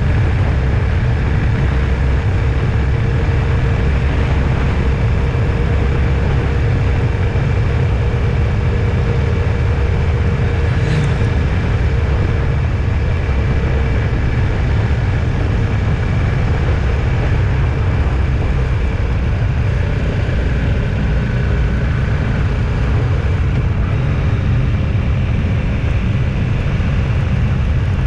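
A vehicle driving along a road: a steady, loud low rumble of engine and road noise that holds evenly throughout, with one short click about eleven seconds in.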